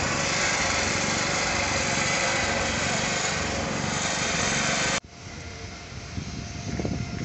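An engine runs steadily and loudly close by. The sound cuts off abruptly about five seconds in, leaving quieter outdoor noise with a few low knocks.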